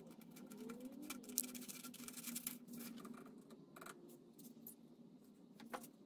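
Faint scratching, rustling and a few sharp clicks of hands handling a paper knife template and small tools on a workbench, over a low steady hum.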